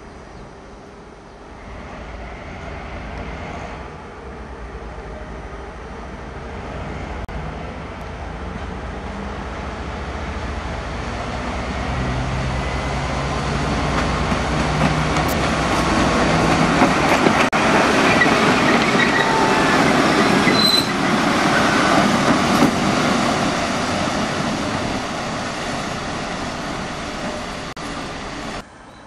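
TEP70 diesel locomotive running light with its 16-cylinder diesel engine working, growing steadily louder as it approaches and passes, with wheel and rail noise. The sound then fades and cuts off abruptly near the end.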